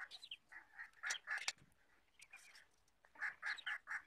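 Domestic fowl clucking and calling in short, repeated calls, with a quick run of calls about three seconds in.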